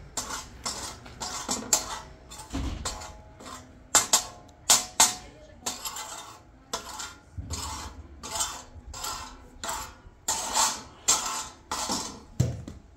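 Metal spatula scraping and stirring wheat in a large shallow steel pan over a wood fire, in repeated strokes about two a second, with the loudest scrapes about four seconds in.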